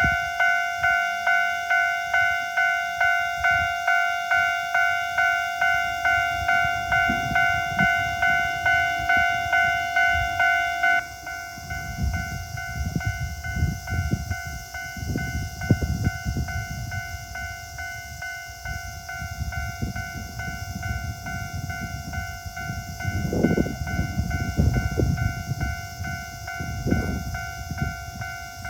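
Japanese railway level crossing warning signal ringing its pulsed electronic bell at about two strikes a second; about eleven seconds in it drops sharply in level and carries on more quietly. Under it a Toyama Chiho Railway train passes over the crossing, a low rumble with heavier surges near the end.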